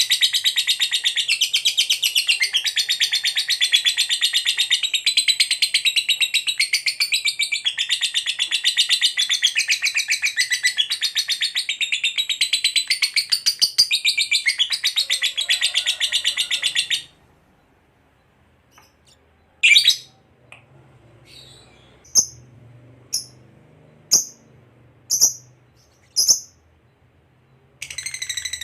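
A fighter lovebird's long, very fast chattering trill (the 'ngekek panjang' of an excited bird), high-pitched and unbroken, which stops abruptly about two-thirds of the way in. Then come about six sharp single chirps roughly a second apart, and the trill starts again near the end.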